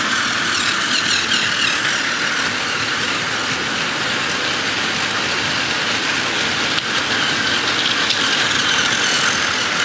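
Plarail toy trains running on blue plastic track: a steady whir of their small battery motors and gears, with the wagons of a long freight train rattling along the track close by.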